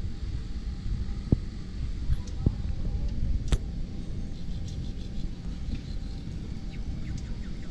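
Steady low outdoor rumble, with three sharp clicks about a second and a half, two and a half and three and a half seconds in.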